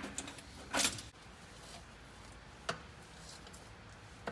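A brief scrape and a couple of sharp clicks of an oil filter wrench worked on the spin-on oil filters of a Detroit 60 Series diesel, over a faint steady hum.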